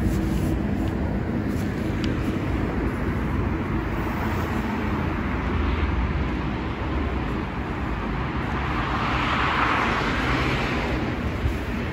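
City street traffic: a steady rumble of cars on the road, with one vehicle passing closer and louder near the end.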